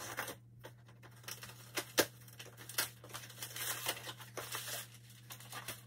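Cardboard shipping box being opened by hand: tape slit and torn, flaps pulled back and packing material crinkled and rustled, with a sharp click about two seconds in.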